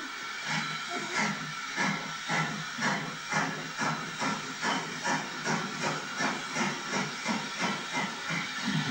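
Steam locomotive working up the line towards the listener: a hissing exhaust with a steady chuff, about two beats a second, coming slightly closer together.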